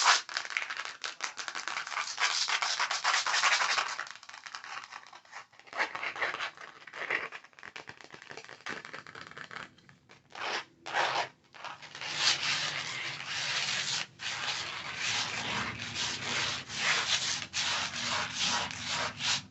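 Pink paper backing card from a set of mini makeup brushes being rubbed and scratched close to the microphone: a dense, scratchy rustle that thins out in the middle, with a few short scrapes, and picks up again for the last several seconds.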